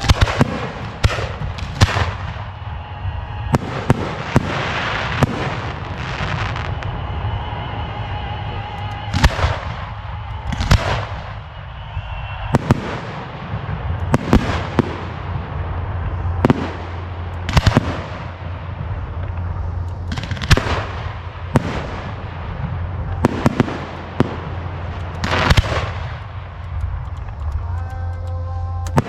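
Fireworks display: aerial shells bursting one after another, sharp booms about every one to two seconds, each followed by a short echoing tail.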